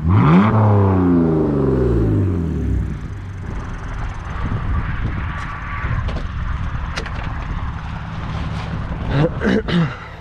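BMW inline-six engine blipped sharply, its revs falling away over a few seconds, then settling to a steady idle with a few sharp clicks and a brief swell near the end.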